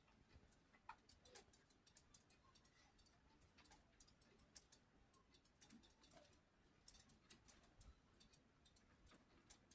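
Near silence with faint, irregular small clicks and ticks scattered throughout.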